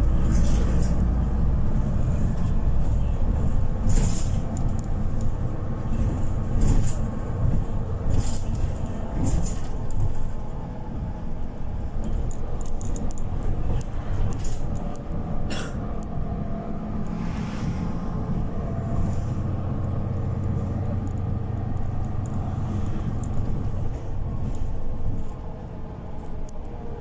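City bus running along a wet road, heard from inside near the front: a steady engine and tyre rumble, with irregular sharp clicks and knocks from the bus interior rattling over the road.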